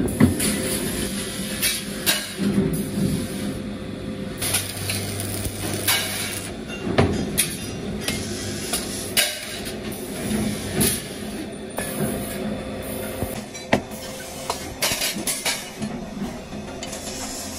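Metalworking sounds while steel trowel blades are handled and stick-welded: irregular sharp metallic clinks and knocks over a steady hum and hiss.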